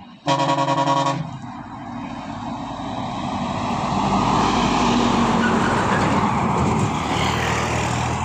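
A semi-truck's horn sounds once for about a second, as a chord of several steady notes. Then a loud rumble of truck engine and road noise builds up and holds, as a heavy vehicle draws close.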